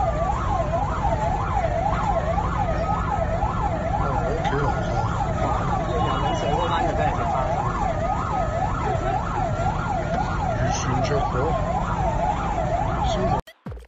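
Two emergency sirens sounding at once: a fast yelping siren rising and falling about three times a second over a slower wailing siren gliding up and down, with a low rumble underneath. Both cut off suddenly near the end.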